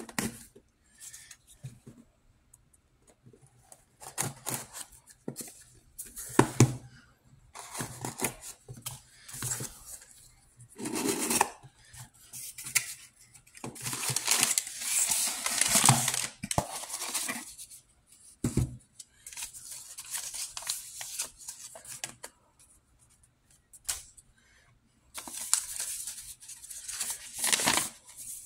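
Cardboard shipping box opened by hand: stop-start tearing and scraping of tape and cardboard flaps, and crinkling of the packing paper inside. Near the end a sheet of paper is handled and unfolded.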